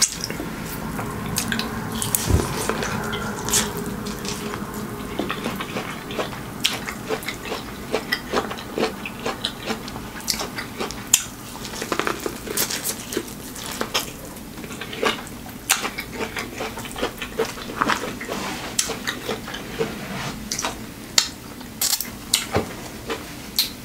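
Close-miked eating sounds: repeated bites and chewing of corn on the cob, with many short wet mouth clicks and smacks. Near the end come finger-licking smacks.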